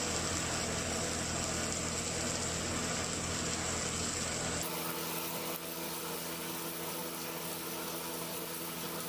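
Steady hum and hiss of kitchen background noise. About halfway through the low hum drops out suddenly, leaving a lighter, even hiss.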